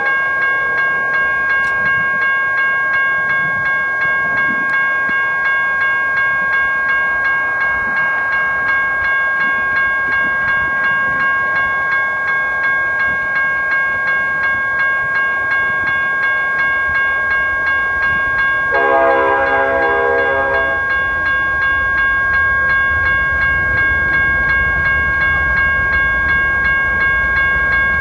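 Railroad grade-crossing warning bell ringing steadily with a regular pulse. About two-thirds of the way through, a BNSF intermodal freight's locomotive horn sounds one blast of about two seconds. The low rumble of the approaching locomotives grows through the last several seconds.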